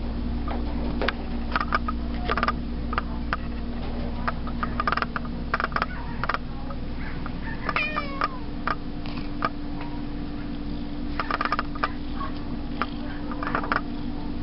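Domestic cat giving one short, falling, squeaky meow about eight seconds in as it yawns. Around it are scattered clicks and taps and a steady hum that steps up in pitch about six seconds in.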